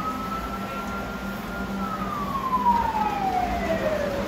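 A fire siren sound effect on the model layout gives one slow wail: it holds high for about a second and a half, then falls away over the next two and a half seconds. A steady low hum runs underneath.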